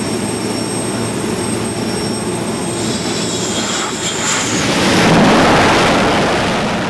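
F/A-18 jet's engines running as it comes in to land on a carrier deck: a steady jet noise with a high whine, swelling to its loudest about five seconds in as the jet passes and touches down, then easing off.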